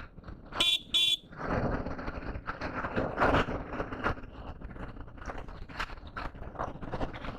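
Two short electronic chirps close together, like a motorcycle alarm being disarmed, then about a second and a half in the BMW G310 GS's single-cylinder engine starts and keeps running.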